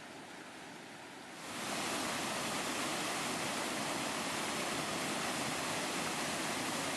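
Artificial waterfall over a 14-metre dam: a steady, even rush of falling water that comes in about a second and a half in.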